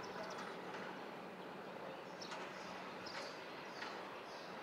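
Small birds chirping: several short, high chirps, mostly from about two seconds in. Under them runs a steady outdoor background with a faint low hum.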